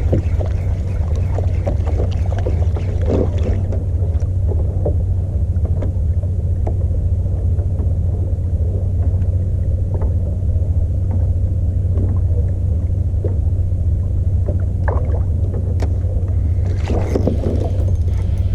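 Small 2-horsepower outboard motor on a kayak running steadily, a constant low drone. A brief rush of noise comes near the end.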